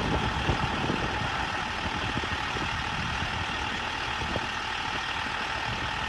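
Fire truck's engine idling steadily.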